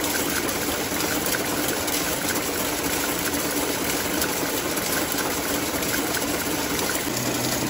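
Heavy-duty needle loom for narrow fabric running at production speed. It is built to weave tape over 100 mm wide and over 3 mm thick, and gives a steady, dense mechanical din with a weighty sound.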